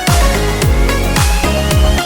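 Electronic dance music with a heavy bass line and a steady kick-drum beat, with a slowly rising synth tone.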